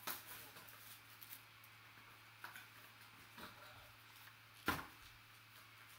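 Quiet handling noise of a trading-card pack: soft crinkles, rustles and small clicks as the wrapper and card are handled, with one sharper knock about three-quarters of the way through. A faint steady hum runs underneath.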